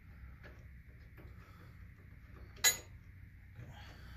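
Metal hand tools being handled: a few faint clicks, then one sharp metallic clink a little past halfway through, as a socket ratchet and bolt are worked on the transmission.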